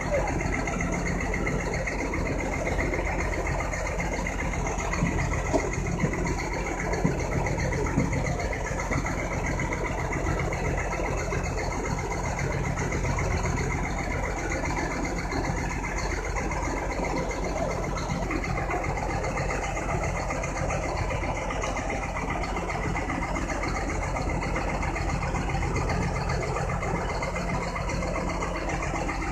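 An engine running steadily at idle, with a few short knocks between about five and eight seconds in.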